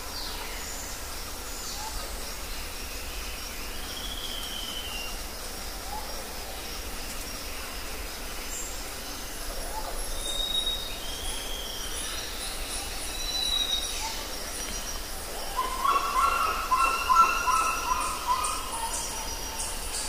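Rainforest ambience: birds whistling and calling over a steady high chirping. Near the end, a louder run of quick repeated calls.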